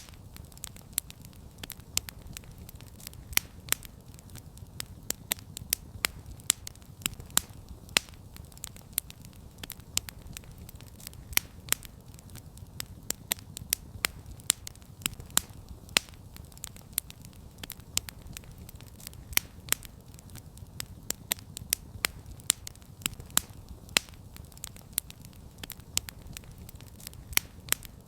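Wood campfire burning with frequent sharp, irregular crackles and pops over a steady low rumble of the flames.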